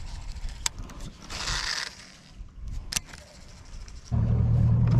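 Light clicks and handling of a baitcasting reel, with a short hiss about a second and a half in. About four seconds in, a loud, steady, low electric hum starts: a boat's trolling motor running.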